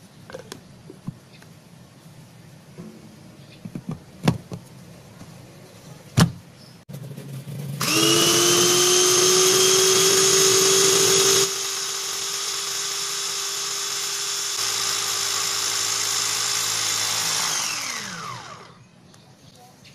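Cosmos FP-313 electric food processor grinding rolled oats. First come a few clicks and knocks as the lid and motor unit are fitted onto the glass bowl. About eight seconds in the motor starts with a high whine, runs loud, drops a step quieter partway through, and spins down with a falling whine near the end.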